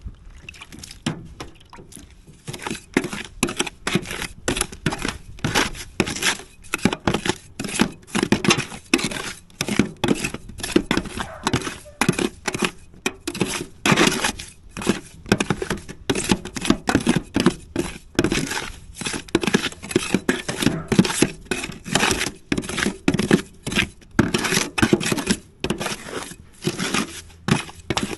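A dense, irregular run of short rasping strokes: a hand tool scraping or cutting at roofing material, with no let-up.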